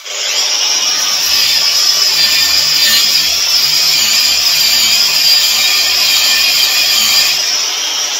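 Angle grinder fitted with a stainless-steel wire brush, running steadily against welded steel to clean it: a loud, high, scratching whir.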